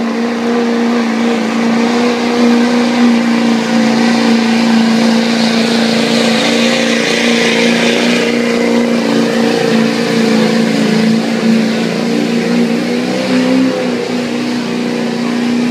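Diesel pickup truck's engine held at high, nearly constant revs under full load as it drags a weight-transfer sled down the pulling track. A rushing hiss swells over the engine about five seconds in and fades again a few seconds later.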